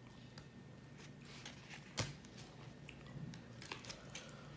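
Black plastic spoon clicking and scraping against a clear plastic takeaway food container as food is scooped, with one sharper click about two seconds in.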